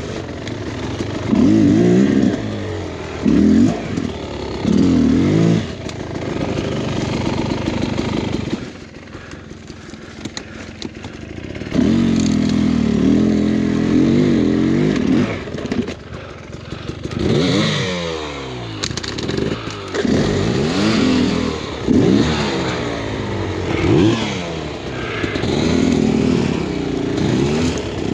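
Beta X-Trainer 300 two-stroke dirt bike engine blipped and revved in repeated short bursts at low speed, dropping to a quieter idle for a few seconds about a third of the way in, then held at a steady rev before more quick blips.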